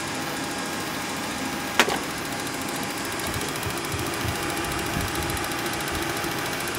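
The Boeing 737's auxiliary power unit (APU), just started and running steadily, heard from inside the cockpit as an even hum with a few steady tones. One sharp click comes about two seconds in.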